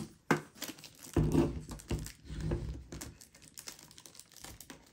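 Packaging crinkling and rustling, with handling clicks, as a Pokémon Eevee Collector's Chest tin is opened and its contents taken out. There is a sharp click just after the start, and a burst of heavier handling noise about a second in.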